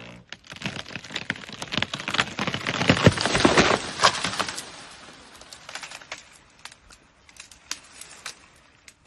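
A dry, leafless tree being pushed over by an elephant: a dense run of wood cracking and branches snapping that builds to its loudest about three to four seconds in as the tree goes down, then thins to scattered sharp cracks as it settles.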